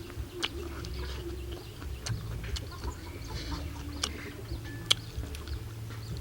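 Chickens clucking, with scattered short sharp clicks over a steady low hum.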